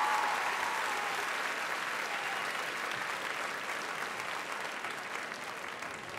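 Theatre audience applauding, the clapping gradually dying down.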